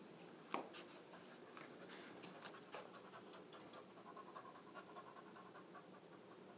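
A young American Pit Bull Terrier panting softly, with one sharp click about half a second in and a few fainter ticks.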